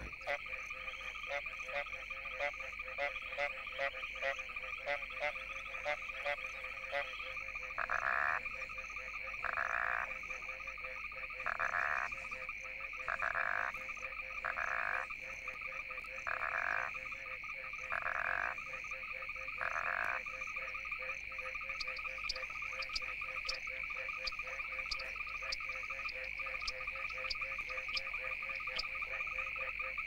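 A night chorus of many frogs calling together: a steady high trill and a lower drone under quick pulsing calls. For a stretch in the middle, one loud frog repeats a short call about every second and a half, eight times, and quick high clicking calls join near the end.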